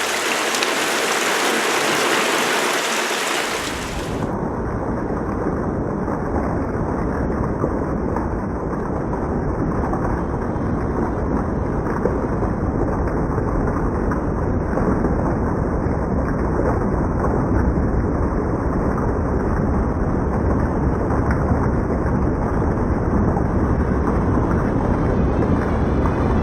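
Storm rain pouring, a steady loud hiss. About four seconds in, the sound turns duller, with a deep rumble underneath.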